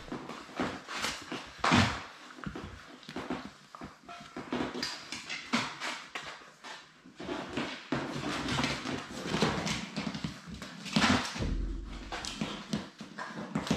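Labrador puppies playing and scuffling on a wooden floor: a busy run of paw scrabbles, scrapes and knocks, with louder bumps about two seconds in and again about eleven seconds in.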